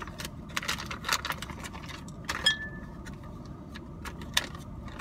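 A ration snack pouch being opened and handled: irregular crinkling and sharp clicks, the loudest about two and a half seconds in, over a steady low rumble.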